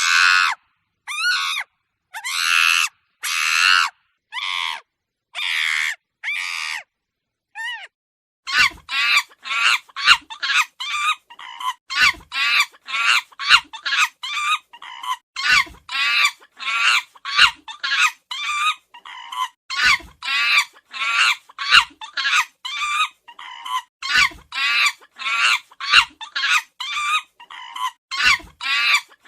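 Monkey calls: about seven drawn-out, high screeches over the first eight seconds, then a fast run of short, high yelps, roughly two a second.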